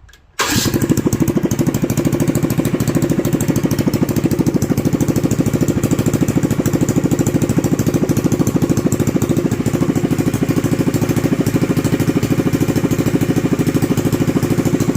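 Homebuilt 440cc four-stroke ultralight aircraft engine with a propeller reduction drive, starting about half a second in and then running loud and steady with a fast, even firing beat.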